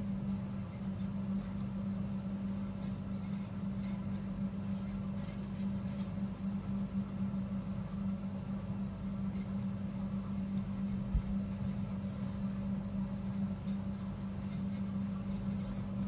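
Steady low background hum with a few faint, scattered ticks.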